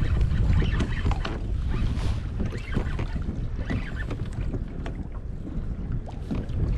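Wind buffeting the microphone in a steady low rumble, with choppy water splashing and lapping against a Hobie Outback kayak's hull in short, irregular splashes.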